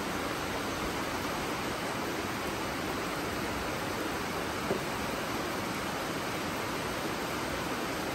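Steady rain falling, an even hiss, with one small tap about halfway through.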